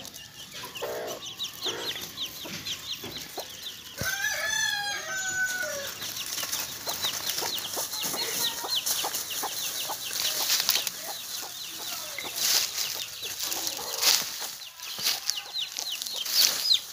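Chicks peeping over and over in short, high chirps, with a louder drawn-out hen call about four seconds in. Dry bamboo leaves rustle and crackle as the birds scratch among them.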